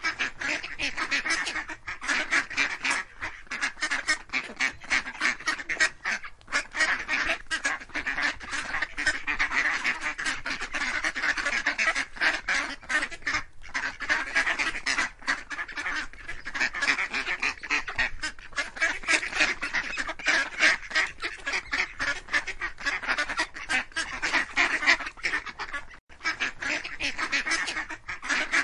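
A flock of ducks quacking, many short calls overlapping in a dense, continuous chatter.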